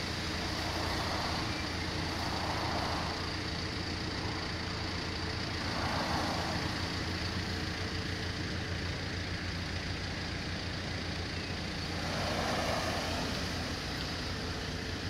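Steady road traffic noise with a low hum, swelling softly four times as vehicles pass and fade.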